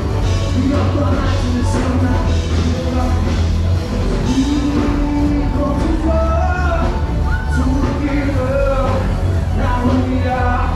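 Rock music with a singer's voice carrying the melody over a steady, heavy bass.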